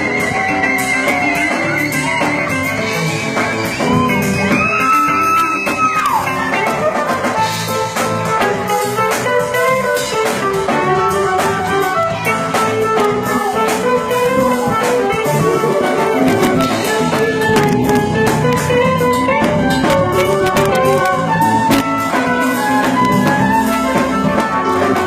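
Live band playing a soul song, with guitar carrying bending lead lines over a drum kit and full backing.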